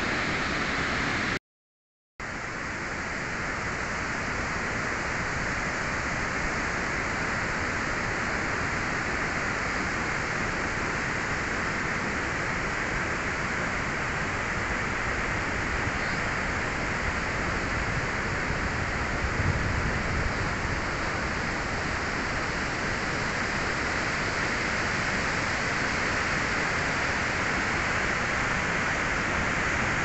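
Steady, even rushing of a tall mountain waterfall's falling water. The sound drops out completely for a moment about a second and a half in, then resumes unchanged.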